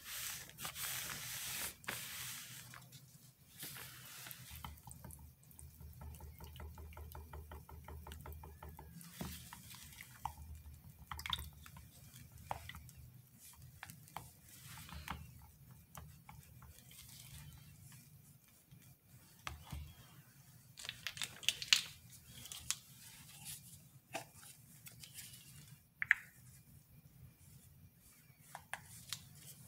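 Cold-process soap batter being stirred and scraped in a small plastic measuring jug, with wet squishing and dripping and sharp clicks of the utensils against the jug, the loudest about two-thirds of the way through. It opens with a rough hiss of a cloth wiped across the table.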